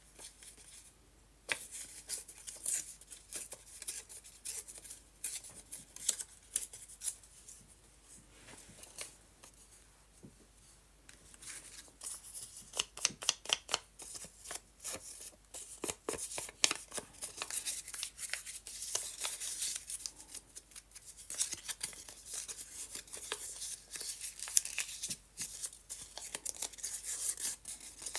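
Paper rustling as a strip is handled and shifted on the page, with rubbing strokes of a small foam ink applicator along the paper's edges. About halfway through, a quick run of short, regular strokes.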